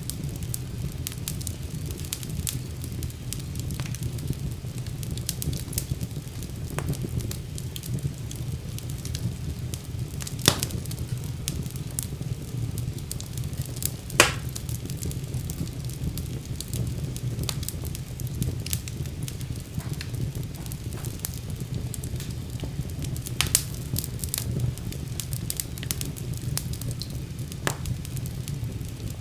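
Wood fire burning in a fireplace: a steady low rumble with frequent small crackles and a few louder pops.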